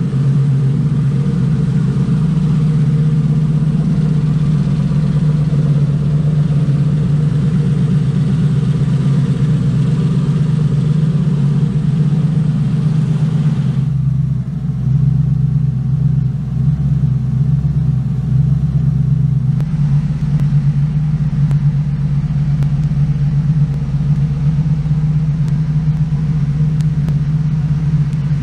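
Freshly rebuilt twin-turbo V8 in a 1998 Saleen Mustang running at a steady speed on its first run after the rebuild. Partway through, the higher hiss drops away for about five seconds.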